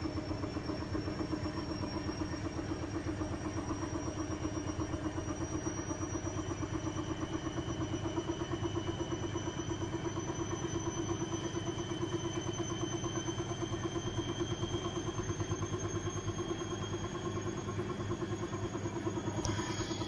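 Washing machine in its final spin: the motor whine climbs slowly as the drum speeds up, over a fast regular throb from a very unbalanced load. A sharp click near the end.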